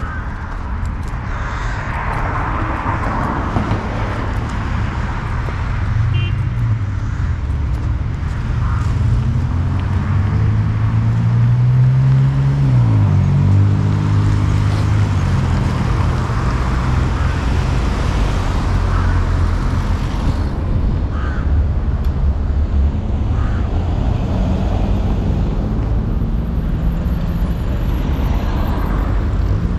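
Street traffic: car engines running and passing. About halfway through, one engine's pitch climbs and then drops sharply.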